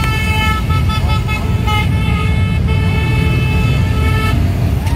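Engines of a column of cruiser and touring motorcycles passing along a highway, with horns sounding in repeated blasts over the engine noise.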